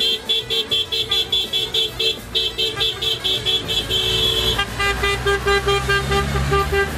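Vehicle horns in a departing convoy of minibuses and trucks, honking in rapid repeated beeps, about five a second. A little over halfway through, a second horn with a different tone takes over, over the low rumble of engines pulling away.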